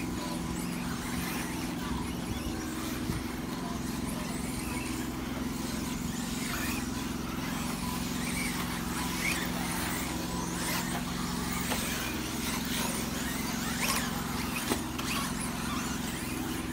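Radio-controlled 4WD cars racing on a track: brief faint motor whines and tyre noise as cars pass, over a steady low hum.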